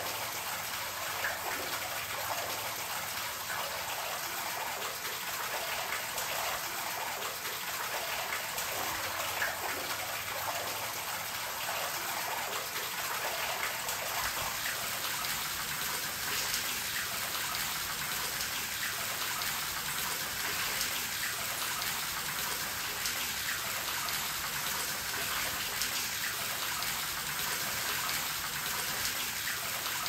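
Rainwater draining into a storm drain: a steady trickle and splash of water running down into the sewer below, with many small drips.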